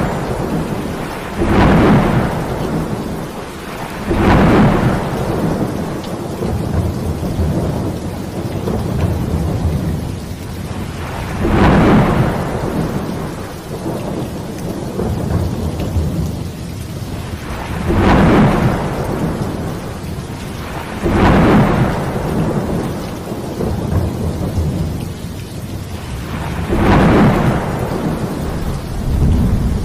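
Heavy rain falling steadily, with thunder rumbling six times, each rumble swelling and dying away over a second or two.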